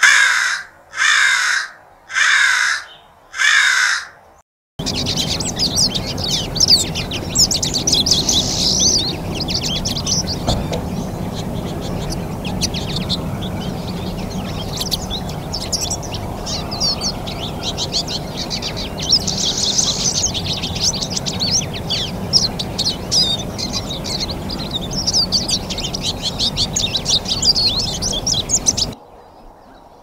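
An American crow caws four times, harsh loud calls about a second apart. Then a flock of pine siskins twitters and chatters without pause over a steady low rumble, stopping shortly before the end.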